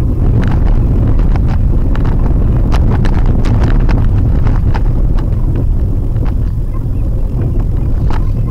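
Steady low road rumble inside a Maruti Suzuki WagonR's cabin as it drives over a rough, unpaved dirt road. Scattered clicks and knocks from the rough surface come mostly in the first half.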